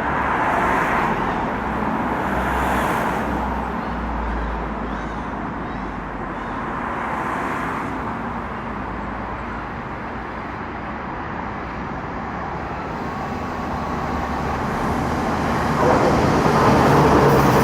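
Steady rumble of passing traffic with a low engine hum. Near the end it grows louder and a steady low drone comes in as a train approaches.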